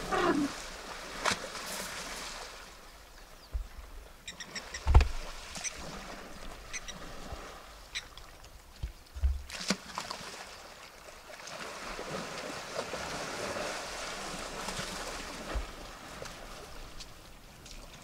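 Young African elephant bulls sparring at the edge of a waterhole: water sloshing and splashing with scattered low thumps, the loudest about five seconds in. A small bird chirps a few times about four seconds in.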